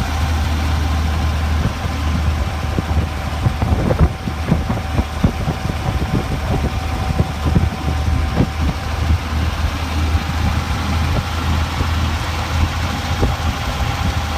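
The engine of a 1925 Reo roadster running as the car drives along, heard from the open driver's seat, with scattered short knocks and rattles, the sharpest about four seconds in.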